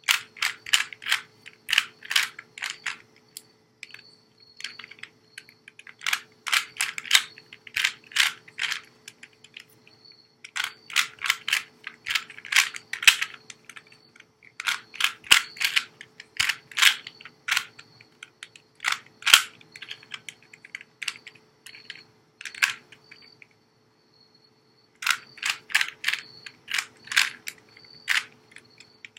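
Rubik's Cube layers being twisted by hand: quick runs of plastic clicks and clacks, with short pauses between runs of moves.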